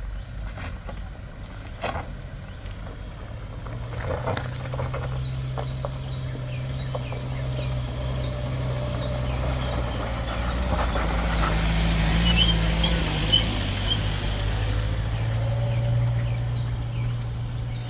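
Heavy diesel engine running with a steady low drone, growing louder from a few seconds in and loudest past the middle. A few short high chirps are heard about twelve seconds in.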